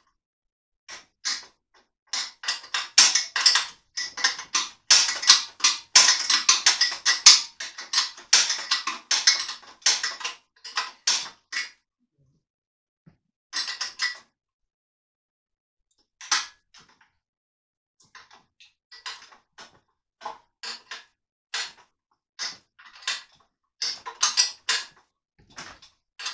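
Rapid, irregular sharp clicks and crackles, packed densely for about ten seconds, then thinning to scattered clicks with pauses between them.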